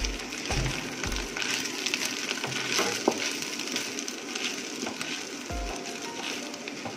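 Kimchi fried rice with ham sizzling in a pan while a wooden spatula stirs and scrapes it, with many small scraping clicks over a steady hiss. Background music with low beats plays underneath.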